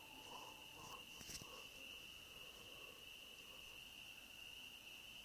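Faint, steady high-pitched chirring of crickets, with a couple of faint ticks about a second in.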